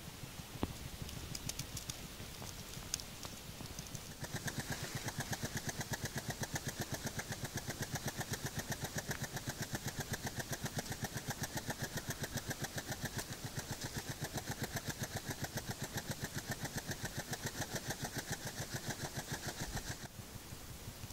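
Common hedgehog snuffling with its nose in the leaf litter: a fast, even run of short puffing sniffs that starts about four seconds in and stops suddenly near the end. A few faint clicks come before it.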